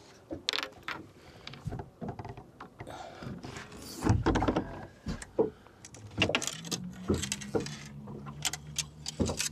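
Fishing rods and gear rattling and knocking as a boat's deck storage locker is rummaged through, with a louder clatter about four seconds in. A steady low hum comes in about two-thirds of the way through.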